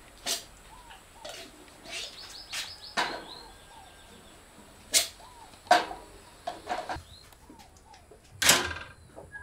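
Plastic cups and plates being knocked and set down into a metal wire dish rack: a string of short sharp clatters, the longest about a second before the end. Birds chirp faintly in the background.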